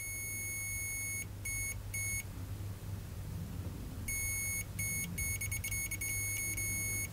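Multimeter continuity beeper sounding across an RC receiver switch turned on, showing the switch conducts. It gives one high steady beep for just over a second, then a string of short, broken beeps.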